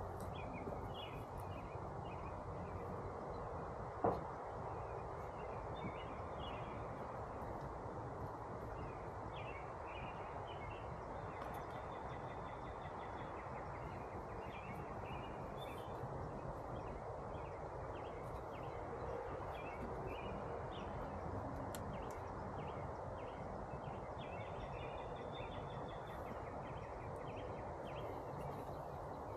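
Carniolan honey bees humming steadily, with songbirds chirping now and then and one sharp knock about four seconds in.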